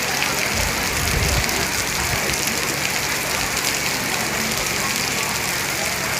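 Heavy rain falling steadily, with a brief low rumble about a second in.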